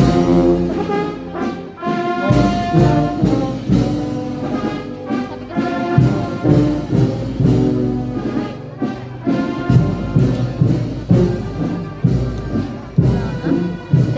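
Brass band music: brass instruments playing a melody over a steady beat.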